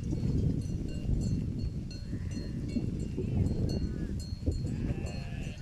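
Flock of sheep grazing: small bells tinkling on and off, with a couple of bleats in the second half, over a steady low background noise.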